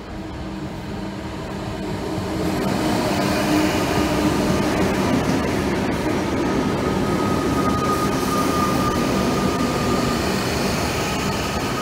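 Two Melbourne Metro electric suburban trains, a Comeng set on the near track and a Siemens set at the platform, rolling through the station with a heavy rumble of wheels on rail. It builds over the first couple of seconds, and a steady high whine sounds through the middle.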